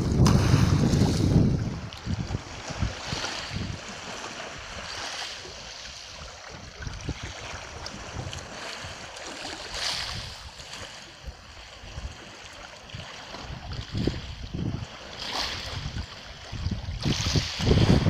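Small waves lapping and washing up a shingle beach, with a hissing surge every few seconds. Wind buffets the microphone with a low rumble for the first second or so and again near the end.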